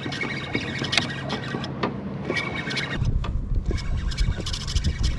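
Wind buffeting the microphone, much stronger from about three seconds in, with scattered clicks and knocks from fishing gear on a kayak.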